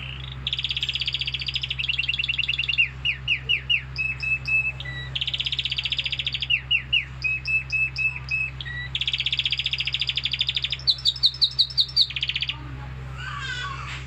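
Domestic canary singing a long song: phrases of very fast repeated notes alternate with slower runs of sweeping notes, with short breaks between phrases, and the song stops about a second and a half before the end. A steady low hum lies underneath.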